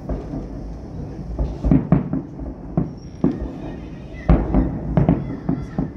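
Distant fireworks shells bursting: a series of about seven booms, in two clusters, over a steady low rumble.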